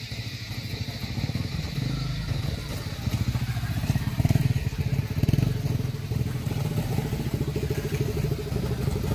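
Small motorcycle engines, among them a Honda CRF250L's single-cylinder engine, riding down a gravel track toward the microphone. The engines grow louder as the bikes come near and are loudest about four to five and a half seconds in.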